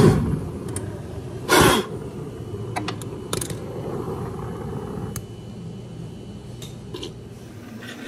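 Two short rushing bursts, one at the start and one about a second and a half in, then a low steady background with scattered clicks and knocks of tools and parts being handled in a refrigerator's compressor compartment.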